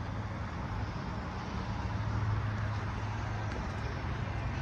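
Steady low motor-vehicle hum with an even wash of traffic noise.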